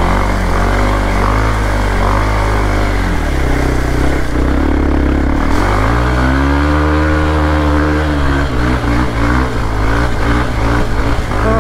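Motorcycle engine pulling in second gear through a waterlogged field. The revs drop, then rise and hold for a couple of seconds before falling again.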